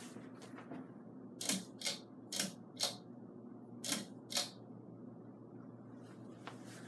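Hunter Claymore ceiling fan running at medium speed with a faint steady motor hum, with about six sharp clicks, roughly in pairs, between about one and a half and four and a half seconds in.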